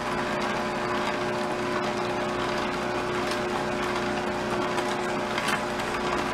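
Electric vertical slow juicer running steadily, its motor and auger humming as they press carrot and fruit pieces. A few short crackles come from the produce being crushed.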